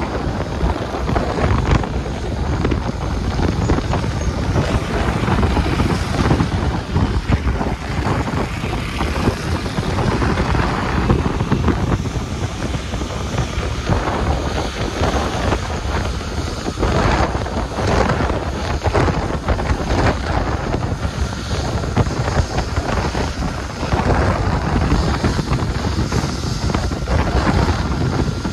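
Wind buffeting the microphone of a camera in a moving vehicle, a loud rushing rumble that rises and falls in gusts, with road noise underneath.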